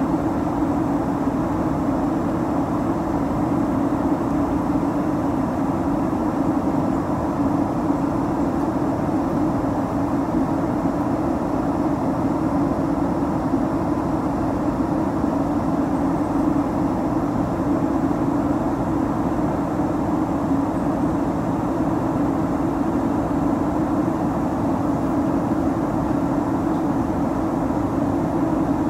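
Steady drone inside a jet airliner's cabin during descent, heard from a window seat at the front of the cabin, with a strong low hum and no change or events.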